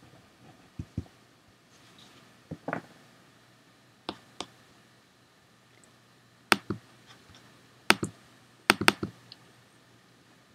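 Scattered sharp clicks from a laptop being operated, a dozen or so, mostly in quick pairs and coming more often in the second half.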